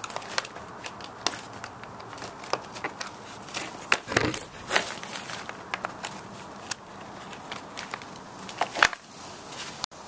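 Irregular clicks and scrapes of small sheet-metal retaining clips being pried off a plastic trim panel with a flathead screwdriver and slid onto another panel by hand, with a few sharper clicks about four and five seconds in and again near the end.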